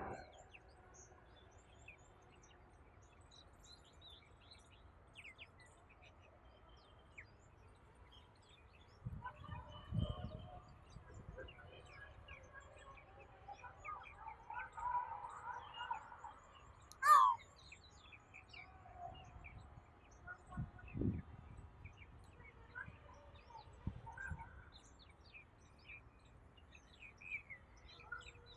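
Birds chirping sporadically over a faint background, with a few low thuds and one brief, louder sound about two-thirds of the way through.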